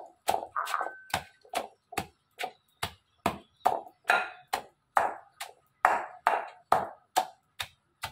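Pestle pounding small freshwater crabs in a mortar to mash them: steady, evenly spaced strikes about two to three a second, each a knock with a short ringing ping.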